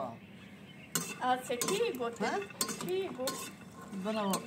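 Metal spoon stirring and scraping in a black wok on a wood-fired mud stove, with sharp clinks of metal on metal from about a second in.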